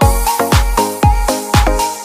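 Upbeat background music with a steady kick drum, about two beats a second, and short pitched notes over it.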